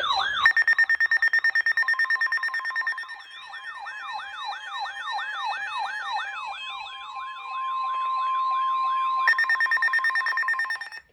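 Electronic emergency alert alarm for a weather-radio Special Marine Warning, built from several siren tones layered together: a warbling high tone, repeated sweeping wails and a rapid pulsing beep. Partway through, the wails give way to a steady single tone. The pulsing then returns louder before the whole alarm cuts off suddenly.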